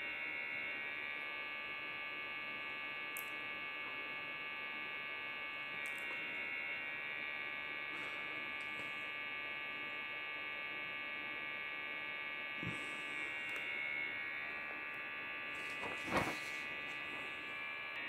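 A steady electrical buzzing hum with several high steady tones, with a soft knock about sixteen seconds in.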